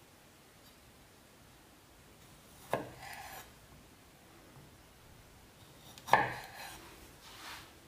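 Kitchen knife halving cherry tomatoes on a bamboo cutting board: two sharp knocks of the blade striking the board, about three seconds apart, each followed by a short, softer sound.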